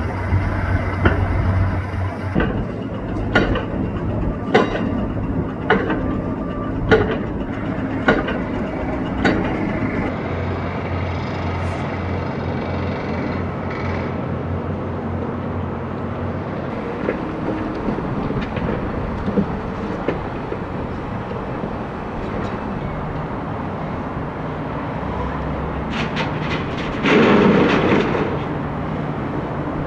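Construction site noise: a steady low machinery drone with a run of sharp knocks about once a second for the first ten seconds, and a louder rushing surge near the end.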